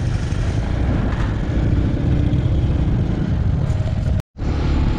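Bajaj Pulsar 150 motorcycle on the move, its engine running under a steady low rush of riding noise on the microphone. The sound drops out for a split second about four seconds in.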